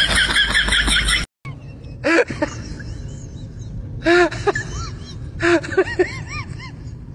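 Laughter that cuts off suddenly about a second in; then, after a short break, a person's short wavering whimpering cries in three spells over a steady low hum.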